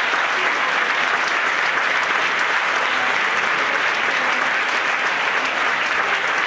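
An audience applauding, a dense, even clapping that holds steady without a break.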